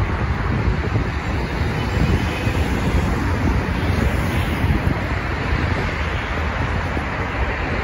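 Steady road traffic noise, with wind buffeting the microphone in a low, fluttering rumble.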